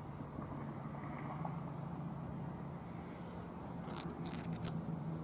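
Wind rumbling steadily on the microphone, with a low steady hum underneath and a few light clicks about four seconds in.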